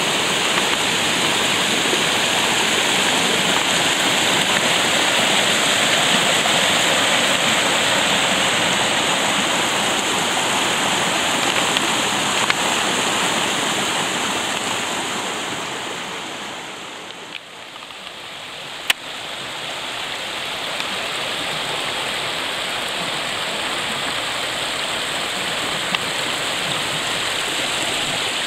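Rain-swollen brook rushing and splashing down rocky cascades, a steady sound of falling water. It grows quieter for a couple of seconds about two-thirds of the way through, then rises again.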